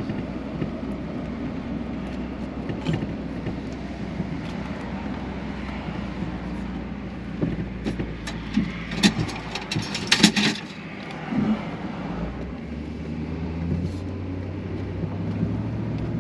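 Steady engine and road noise heard from inside a moving vehicle, with a run of sharp clicks and rattles in the middle. Near the end the engine note rises a little as the vehicle picks up speed.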